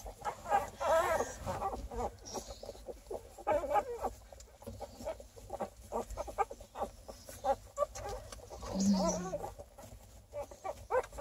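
Eight-day-old beagle puppies squeaking and whining over and over as they nurse on their mother, with a short low grunt about nine seconds in.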